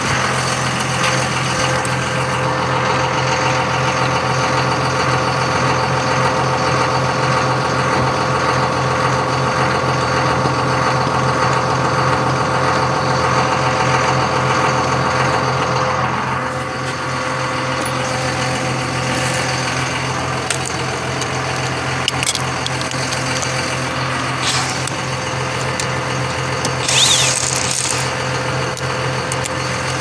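Steady mechanical hum of an engine or motor running, with a brief hiss near the end.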